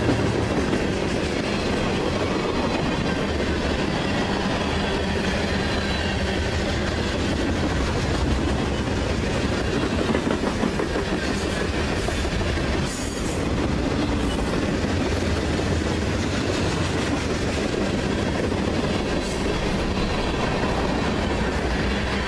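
Freight cars of a passing CSX freight train rolling by at close range: steel wheels clicking over the rail joints over a steady rumble.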